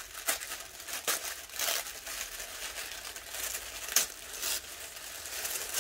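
Tissue paper crinkling and rustling in uneven crackles as it is peeled open and unfolded by hand, with a sharper crackle about four seconds in.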